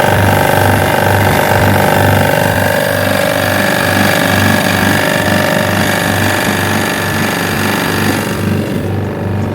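A motor-driven machine running steadily: a whine with a low throb pulsing about twice a second. The hiss in the upper range falls away about eight seconds in.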